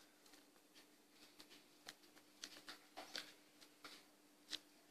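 Near silence: room tone with a faint steady hum and a few faint, short clicks.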